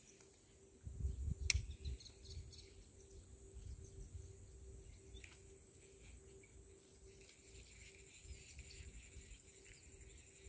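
Faint outdoor ambience: a steady high-pitched insect drone, with a low rumble on the microphone and a single sharp click about one and a half seconds in.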